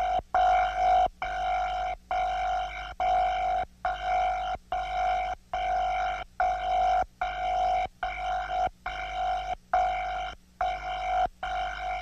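Megahorn creature sound effect: a horn-like blare on one steady pitch, repeated in short blasts a little faster than one a second, with brief breaks between.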